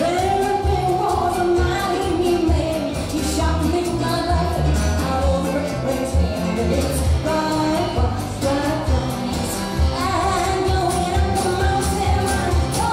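Live country band music: a woman singing into a microphone over stage piano, electric guitar and drums with a steady beat.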